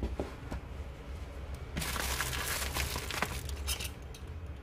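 Black plastic courier wrapping crinkling and rustling as it is handled and torn open by hand. It picks up after a second and a half, with a few sharp crackles.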